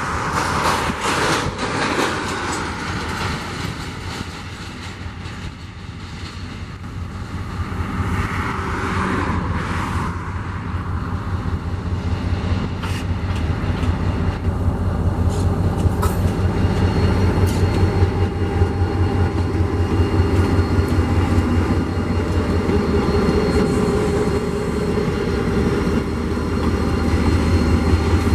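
EMD GT22CW diesel locomotive approaching at the head of a loaded hopper-car freight train. Its 12-cylinder two-stroke diesel gives a steady low drone that grows louder as it draws close and passes near the end.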